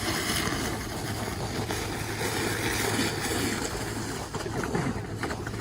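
Truck-mounted carpet-cleaning extractor, driven by the truck's engine, sucking up pond water through its vacuum hose: a steady rushing suction over a low hum, with irregular gurgling slurps.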